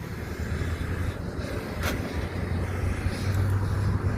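Motor vehicle running: a steady low engine hum with road noise, growing slightly louder, and a single short click about two seconds in.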